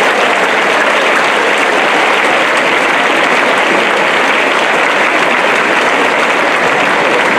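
A large crowd of students applauding, dense clapping that holds steady throughout.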